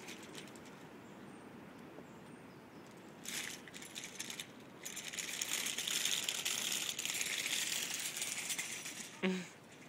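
Plastic wheels and frame of a toy umbrella stroller rattling as it is pushed over a concrete sidewalk, briefly at first and then continuously for several seconds, louder in the second half. A short voice sound comes near the end.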